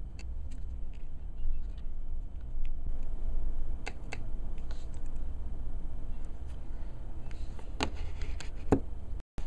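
A few light clicks and taps from small tools and tiny screws on an iPhone 3G being taken apart, over a steady low hum.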